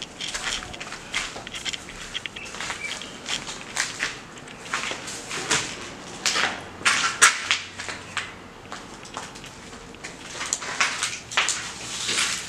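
Irregular crunching footsteps with scattered scrapes and knocks, loudest a little past the middle and again near the end.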